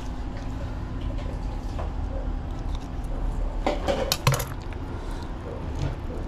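Kitchen knife clicking and clattering against a plastic cutting board: a quick run of sharp clicks and knocks about four seconds in, over a steady low rumble.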